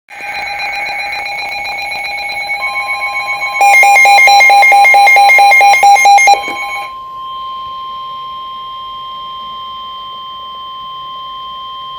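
Weather radio alert tones: electronic alarm tones, steady at first and then beeping loudly at about five a second, stop about seven seconds in. A steady single-pitched warning tone that comes in under them about two and a half seconds in carries on alone to the end. It is the 1050 Hz warning alarm tone that comes before a spoken severe thunderstorm warning on Weatheradio Canada.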